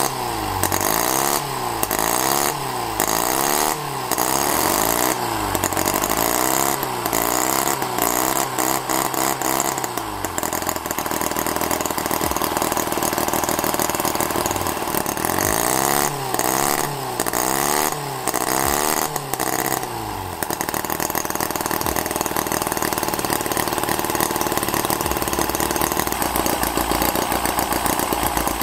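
Miniature four-cylinder Holt H75 model engine running, its throttle blipped by hand so that it revs up and falls back over and over, about once a second. Between the blips and near the end it settles into steady running at roughly 1,700–1,800 rpm.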